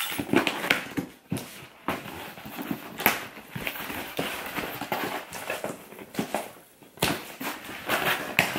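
Packing tape on a cardboard shipping box being slit with keys and ripped, and the box flaps pulled open: irregular scratching and tearing, louder rips about three seconds in and again near the end.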